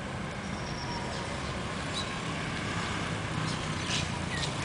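A small step-through motorbike's engine runs as a low rumble in steady outdoor background noise, growing slowly louder as it approaches. A few short, high chirps sound over it.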